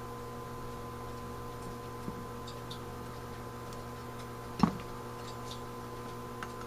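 A few small metal clicks and ticks from the step-up piston assembly being handled in a Carter BBS carburetor body, with one sharper click a little past halfway, over a steady electrical hum.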